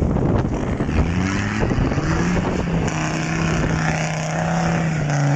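Land Rover Discovery's engine revving up about a second in and then held at steady high revs as it pulls through deep mud, over a continuous rushing noise.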